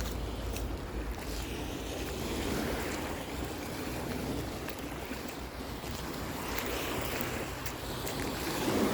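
Lake Erie waves washing onto the beach, swelling and easing in slow surges, with wind buffeting the microphone.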